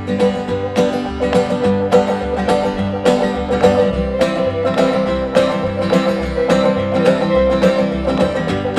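Bluegrass instrumental break: banjo picking over acoustic guitar and upright bass, with a bass note about twice a second and a long held melody note through the middle.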